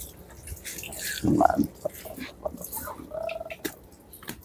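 Feathers being plucked by hand from a slaughtered muscovy duck: quick rustling and tearing strokes. A couple of short animal calls sound in the background, about a second in and again near three seconds.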